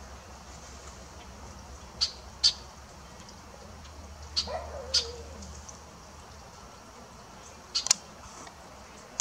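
Female ruby-throated hummingbird giving short, sharp, high chip calls, spaced a second or two apart, with a quick double chip near the end.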